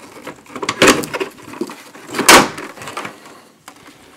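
Sealed lead-acid battery (B.B. HR9-12) being slid into the battery bay of a MinuteMan Pro500E UPS: scraping against the housing, with two loud knocks about one and two seconds in as it is pushed home.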